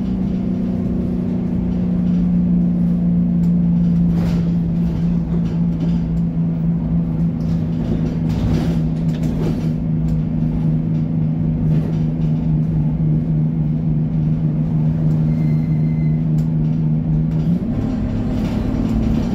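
Inside a single-deck bus on the move: the engine and drivetrain hum holds one steady pitch while it travels, with occasional short rattles of the interior fittings, and the pitch shifts near the end.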